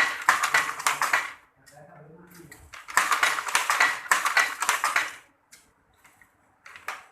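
Traditional wooden handloom for sarong weaving clattering as it is worked: two long bursts of rapid wooden clacking about two seconds apart, then shorter clacks near the end.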